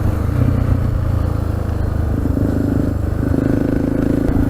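Motorcycle engine running at a steady cruise on the open road, its note dipping and returning slightly a few times.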